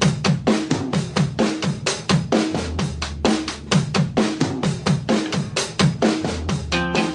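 Background music: a fast rock drum beat with kick drum, snare and cymbals, with a guitar coming in near the end.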